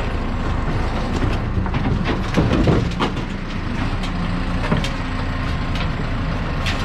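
Diesel engine of a Primetech 175 tracked mulcher running under load as it climbs onto a trailer deck, with a few clanks of the steel tracks on the deck about two and a half seconds in.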